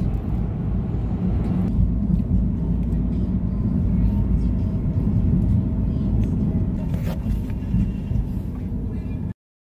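Steady low rumble of a car's road and engine noise heard inside the moving cabin, cutting off abruptly near the end.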